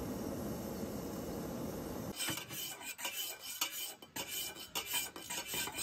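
Steady rushing of a portable gas stove burning under an aluminium kettle, which about two seconds in gives way to a spoon stirring coffee in a stainless steel mug: quick, irregular scraping and clinking of the spoon against the mug's metal wall.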